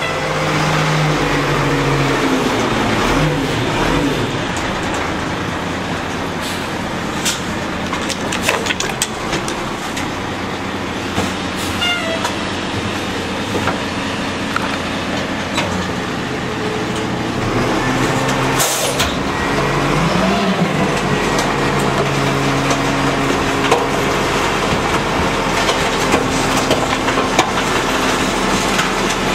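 Rear-loader garbage truck's engine running, revving up and holding higher as the hydraulic packer cycles to compact the load, with clatter of trash going in and a sharp bang about two-thirds of the way through.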